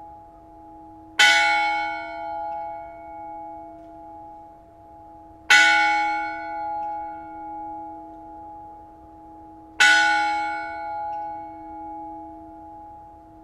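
A single church bell striking midnight: three slow, evenly spaced strokes about four seconds apart, each a sharp clang that rings on in a long, slowly fading hum that swells and ebbs.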